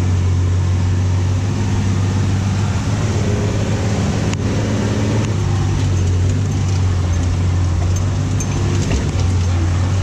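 A 4x4 jeepney's engine running steadily under way, heard from inside the open passenger cabin as a loud, even low drone, with a few knocks from the body on the rough road.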